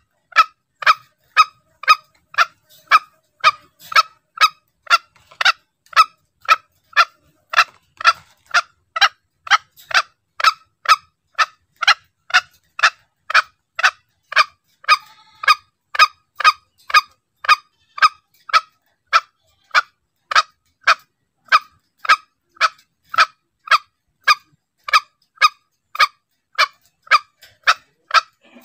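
Green junglefowl lure recording: short, sharp calls repeated evenly about twice a second without a break.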